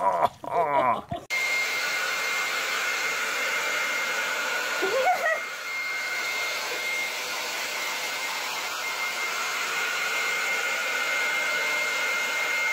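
Handheld hair dryer blowing steadily, a constant rushing noise with a thin high whine, starting suddenly about a second in after a voice and laughter. A short voice rises and falls over it about five seconds in.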